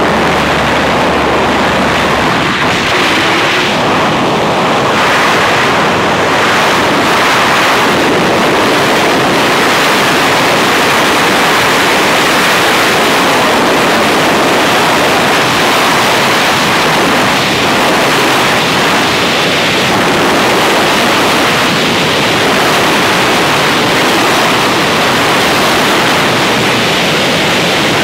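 Loud, steady rush of freefall wind buffeting a skydiver's helmet-mounted camera microphone after exit from the aircraft.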